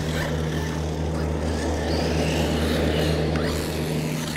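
1/16-scale HBX 16889A Pro RC truck's brushless electric motor whining as it is driven and jumped, rising and falling in pitch, over a steady low hum.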